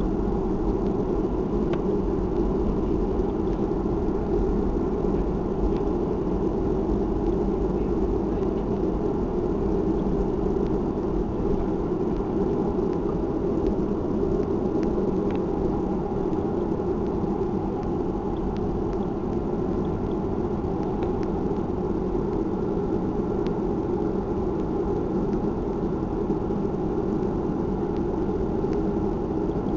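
Steady cabin rumble of a Boeing 737-300 taxiing after landing, heard from inside the cabin: its CFM56 engines at low taxi thrust, an even, unchanging noise.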